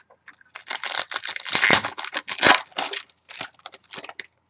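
Trading-card pack wrapper being torn open and crinkled by hand, a dense run of crackling and rustling from about half a second in until near the end.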